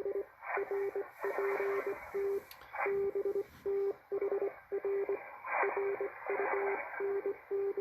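Morse code (CW) signal received on a Malachite DSP SDR shortwave receiver: a single low beep keyed on and off in short and long elements, dots and dashes, over band hiss with a few crackles of static.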